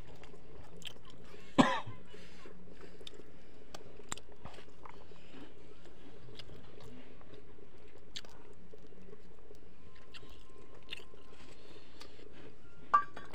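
Close-up chewing and lip-smacking of a man eating rice and fish curry with his fingers, many small wet clicks. A short loud throat sound about a second and a half in, and another near the end.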